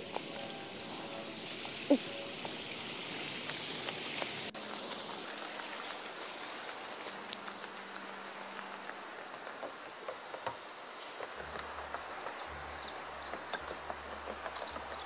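Steady outdoor background noise, an even hiss, with a single sharp click about two seconds in and a run of quick high chirps near the end.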